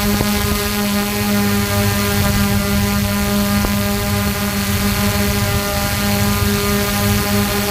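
Multirotor drone's motors and propellers whining at a steady pitch while it hovers, heard close up from the drone's own onboard camera.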